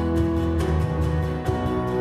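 Live worship band playing a slow song, with steadily strummed acoustic guitars over held keyboard notes.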